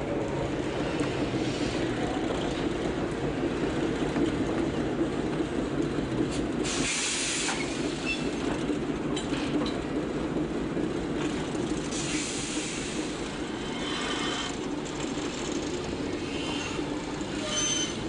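Steam locomotive moving slowly, a steady heavy rumble and grind, with two short loud bursts of steam hiss, about seven and twelve seconds in. Faint metallic squeals come near the end.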